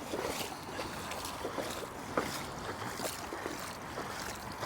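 Wellington boots wading through shallow floodwater on a path, a splash and slosh with each step at a steady walking pace.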